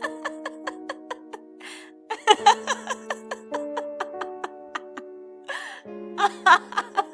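Background music: held chords that shift every second or so over a quick, even beat of short notes, about four a second.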